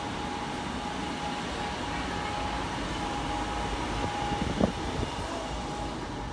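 Steady rushing background noise with a faint steady hum, and a single thump about four and a half seconds in.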